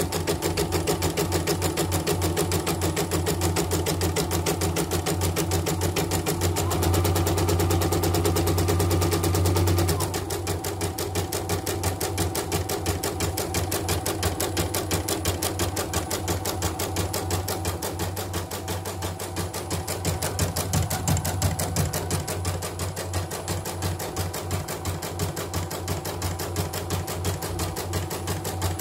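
CNY portable embroidery machine stitching a design, its needle bar running in a fast, even rhythm of strokes. About ten seconds in the low hum drops away and the machine runs a little quieter.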